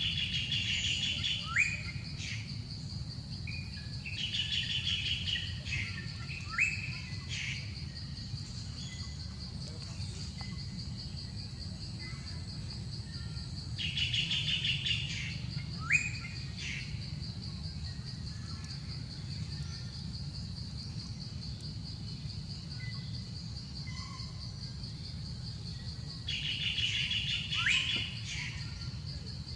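A bird sings the same short trilled phrase four times, each ending in a quick rising whistle, over a steady high-pitched insect drone.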